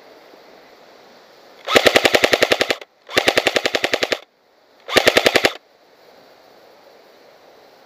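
G&G L85AFV electric airsoft rifle firing on full auto in three bursts of rapid, evenly spaced shots, the last one shortest.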